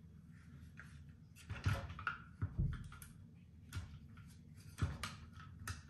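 Plastic hand-press dumpling maker being handled and set down on a hard tabletop: a scatter of sharp plastic clicks and knocks, with a heavier low thump about two and a half seconds in.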